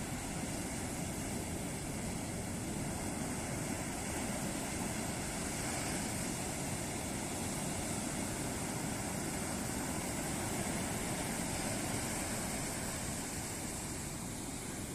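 Ocean surf breaking on a beach: a continuous wash of waves whose level swells slightly in the middle and eases off near the end.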